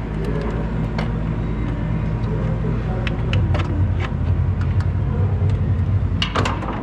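A car engine running steadily, with scattered light clicks and taps over it and a brief cluster of taps near the end.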